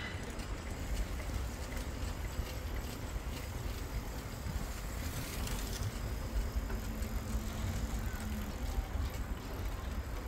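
Wind rumbling on the phone's microphone while riding along a bike path outdoors, an even noise that flutters in level; a faint steady hum comes in for a couple of seconds past the middle.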